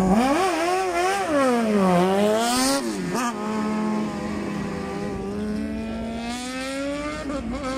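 Open-cockpit sports prototype race car launching from the start and accelerating hard through the gears, its engine note jumping up and dropping back with each quick shift over the first three seconds. It then settles into a steady, slowly rising note as the car pulls away.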